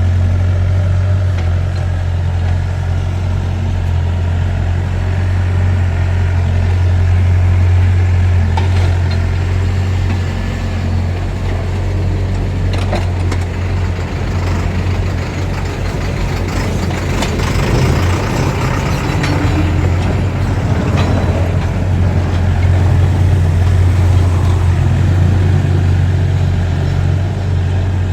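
Heavy diesel engine of construction machinery running steadily with a deep hum. Scattered clanks and a rush of noise swell in the middle, typical of sand being dug or tipped.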